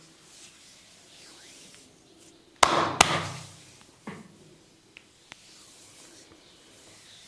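Two sharp, loud smacks about half a second apart from a barber's percussive head massage, followed by a few light taps.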